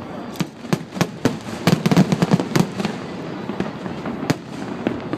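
Aerial fireworks exploding in quick succession: many sharp bangs and cracks, with a dense cluster about two seconds in and a single strong bang a little past four seconds.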